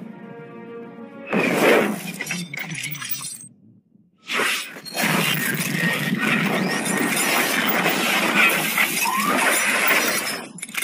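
Cinematic intro soundtrack: a held string chord, then about a second in a loud shattering, crashing sound effect that breaks off briefly near four seconds before a longer, dense crashing effect with music underneath.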